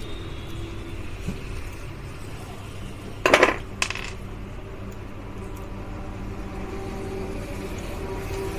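Two sharp metallic clinks about half a second apart, a metal tool or small metal part knocking against metal; the first is louder and rings briefly. They sound over a steady low hum.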